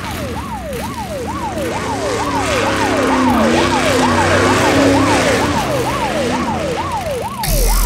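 Emergency-vehicle siren in a fast yelp, its pitch sweeping up and down about two to three times a second, with a second, lower wail rising and falling underneath in the middle. Near the end a loud rush of noise with a deep rumble cuts in suddenly.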